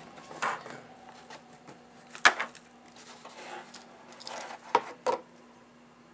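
Hard knocks and clicks of a wand being pried out of its display box insert and the box handled. The sharpest knock comes about two seconds in, with two more close together near the end.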